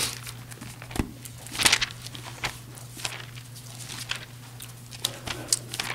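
Pages of a Bible being turned and handled at a pulpit microphone: short papery rustles and clicks, several of them a few seconds apart, over a steady low hum.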